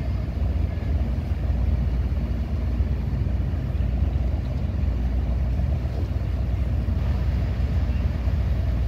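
Engines of many motorboats running together in a passing flotilla, a steady low rumble.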